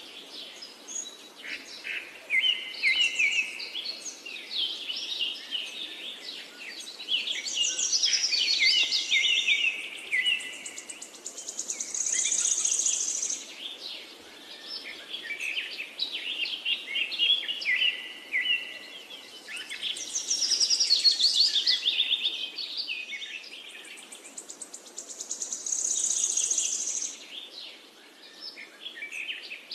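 A chorus of songbirds chirping and trilling, with fast-pulsing insect trills rising and fading every few seconds.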